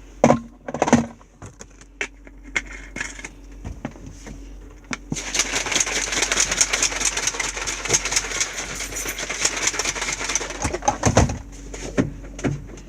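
A plastic shaker bottle of protein powder and water being handled with a couple of knocks. About five seconds in it is shaken hard, a rapid rattling that lasts about six seconds, mixing the powder into the water.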